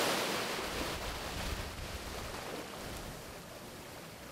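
Small waves washing onto a beach, the hiss of the wash fading away steadily, over a low rumble of wind on the microphone.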